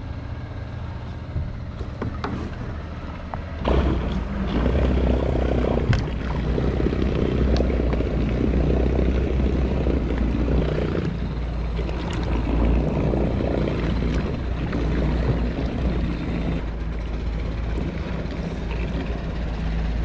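A boat motor running steadily, with water noise over it; the drone grows louder about four seconds in.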